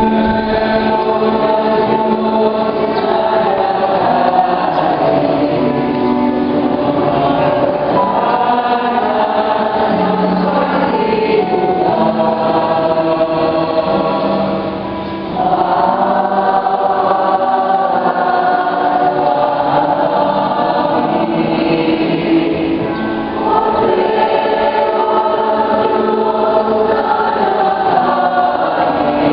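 Church choir and congregation singing a hymn together, many voices holding sustained notes, with brief breaks between phrases about halfway and two-thirds of the way through.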